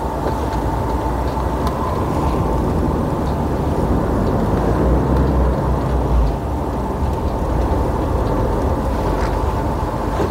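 DAF truck's diesel engine and road noise heard inside the cab while driving: a steady low rumble with a faint steady whine above it.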